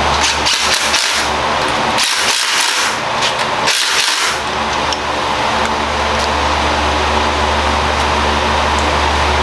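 A steady machine hum runs throughout, with scraping and clinking from hand work on an engine block over the first half.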